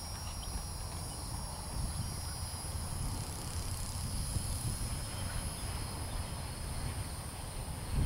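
Palomino horse trotting on a sand arena, its hoofbeats soft and muffled, under a steady high-pitched drone of insects and a low rumble of wind on the microphone.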